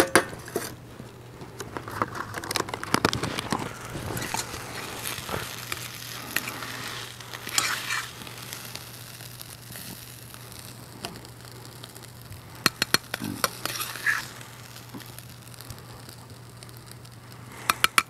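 Metal ladle scraping and knocking against a wok as freshly fried rice is scooped out into a bowl, with a light sizzle from the hot pan and a wood fire crackling. A few sharper clinks stand out about two-thirds of the way through and again near the end.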